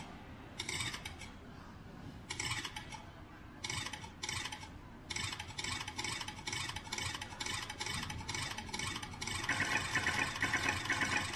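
Scratchy rattling noise in short bursts, irregular at first, then settling about halfway into an even pulse of about three a second. It grows louder and denser near the end.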